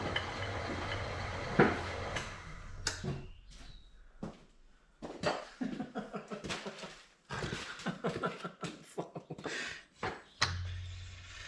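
Lathe's replacement half-horsepower electric motor humming, then dying away after it is switched off, followed by a run of separate clicks and knocks of metal parts being handled. Near the end there is a sharp knock and the low hum briefly returns.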